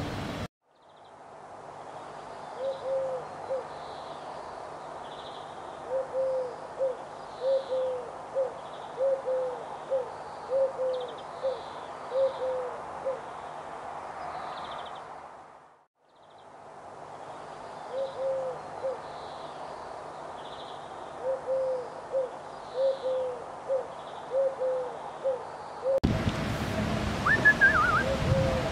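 A run of short, low owl hoots, about two a second. The run fades out and then starts again. Near the end the hoots give way to wind noise and a brief bird chirp.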